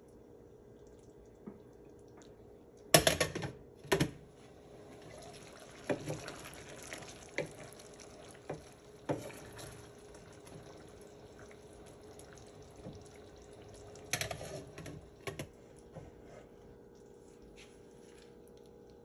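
Wooden spoon stirring chicken stir fry through a simmering sauce in a nonstick frying pan: wet stirring and sizzling, with several sharp knocks of the spoon against the pan, the loudest a pair about 3 and 4 seconds in and another cluster near the end. A steady low hum lies under it throughout.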